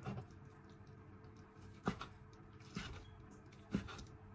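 Kitchen knife slicing boiled chicken breast into strips on a cutting board: four sharp knocks of the blade reaching the board, spaced about a second apart.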